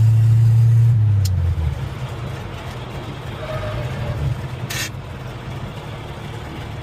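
1966 Chevy C10 pickup's engine heard from the cab, holding a steady hum that drops away about a second and a half in as the revs fall, then running lower and rougher as the truck rolls, with a click near the start and a short sharp noise near the middle. The old truck's transmission is hard to get into gear.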